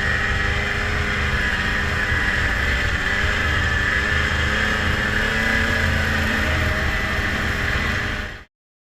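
Two-stroke snowmobile engine running steadily at a near-constant speed, then cutting off suddenly near the end.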